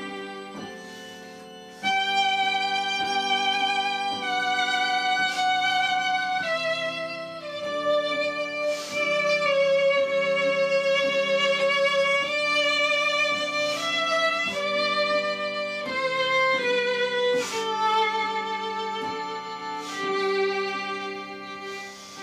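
Slow instrumental background music: a melody of long held notes with vibrato over a sustained accompaniment, getting louder about two seconds in.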